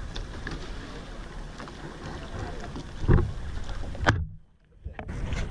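Wind buffeting the microphone over water slapping around a small boat, with two dull thumps about three and four seconds in. After the second thump the sound drops briefly to a muffled low rumble, then comes back.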